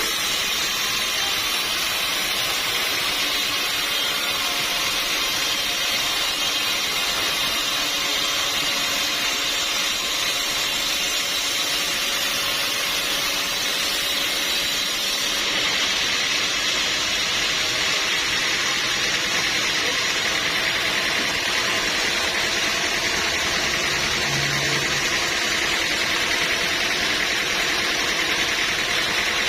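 Sawmill running with a steady, even mechanical hiss and drone, unbroken throughout.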